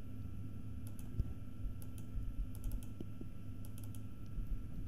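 Faint, scattered, irregular clicks from a computer mouse and keyboard, over a steady low hum.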